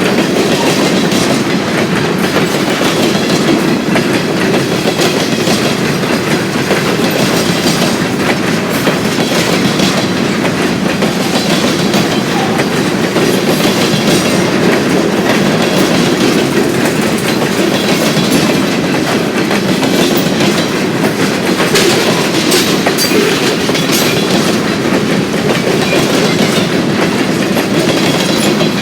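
Freight train cars rolling past on steel rails: a steady loud rumble of wheels on track, with frequent clicks as the wheels cross rail joints.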